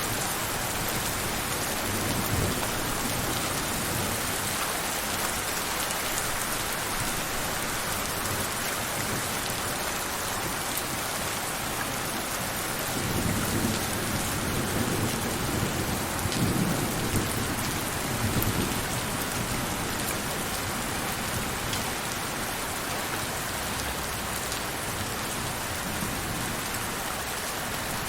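Steady rain falling in an even hiss, with a low rumble of thunder about two seconds in and a longer, louder roll of thunder from about halfway through lasting several seconds.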